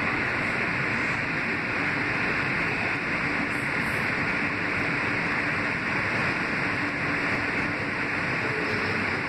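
Kawasaki-built R160B subway car with Siemens propulsion running at steady speed, heard inside the car: an even rushing of wheels on rail with a faint steady hum underneath.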